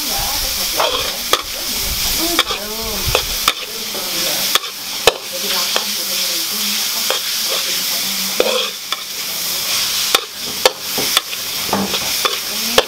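Rice vermicelli with carrot and spring onion stir-frying in a large aluminium wok: a steady sizzle, with a metal spatula clacking and scraping against the wok at irregular intervals.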